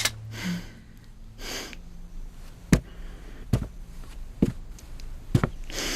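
Four sharp footsteps on a hard floor, a little under a second apart, with soft breathy swishes of breath or cloth around them.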